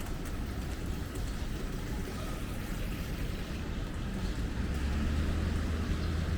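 Street traffic: a steady low rumble of passing vehicles, growing louder about five seconds in.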